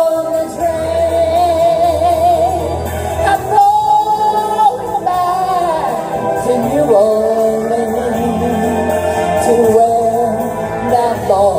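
A woman singing karaoke into a microphone over a recorded backing track.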